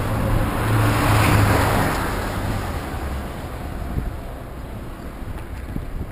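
Highway traffic: a passing tractor-trailer, its rumble and tyre hiss swelling to a peak about a second in and fading away by about three seconds.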